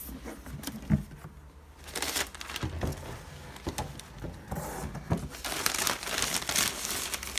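Cardboard shoe box lid handled with a few sharp knocks about a second in, then tissue paper rustling and crinkling as it is folded back.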